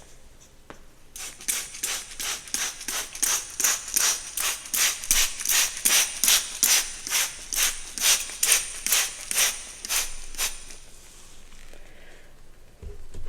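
A hairbrush stroking through hair in quick, even strokes, about three a second, that stop about ten seconds in. A low thump follows near the end.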